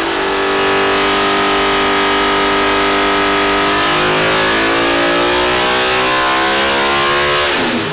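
Naturally aspirated Chevrolet R07 NASCAR V8 running on an engine dyno, held at high rpm with a steady, loud, even note. Near the end the rpm falls away as it comes off the throttle.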